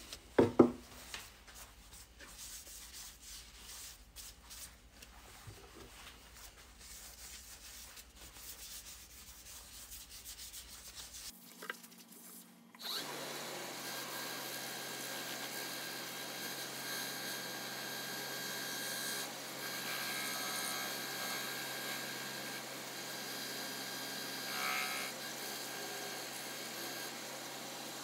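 Quiet handling with a sharp knock about half a second in, then from about 13 s in a lathe spinning a wood-and-resin blank while a paper towel loaded with abrasive paste rubs against its face, a steady hiss: the piece is being polished with abrasive paste.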